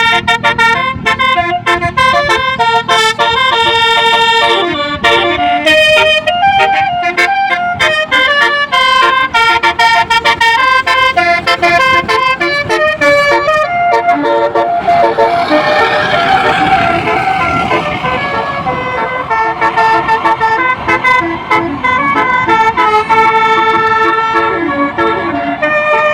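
A bus's basuri melody horn playing a tune: rapid runs of loud horn notes stepping up and down in pitch. A rushing, hissing noise swells under the notes around the middle.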